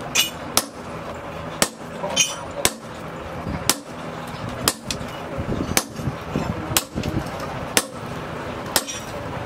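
Hand hammer striking red-hot chainsaw steel held in tongs on an anvil stake. It lands about a dozen sharp blows, roughly one a second, some of them ringing.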